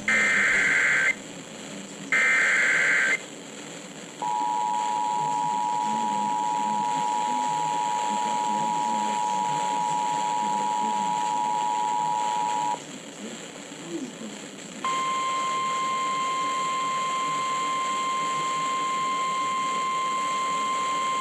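NOAA Weather Radio emergency alert heard over a radio receiver. It starts with the last two one-second screeches of the SAME digital header about a second apart, then the two-tone EAS attention signal held for about eight seconds. After a short pause comes the steady single-pitch weather radio warning alarm tone, which marks a warning being issued. Radio hiss runs underneath throughout.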